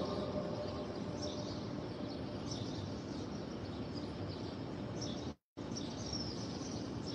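Low, steady background hiss with a few faint bird chirps. The sound cuts out completely for about half a second a little after five seconds in.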